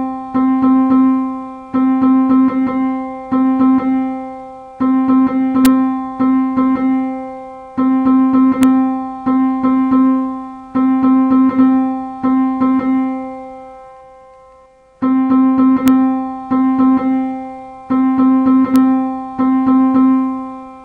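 A single piano-like note sample played over and over by a Python program through pygame, always at the same pitch. It sounds about every second and a half with faint quick repeats in between, and each note fades before the next. The notes stop for about a second near fourteen seconds in, then start again.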